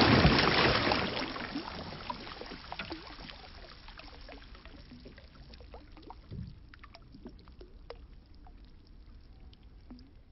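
River water splashing and trickling against a paddleboard's side: a wash of water that fades over the first few seconds, then faint scattered drips and trickles.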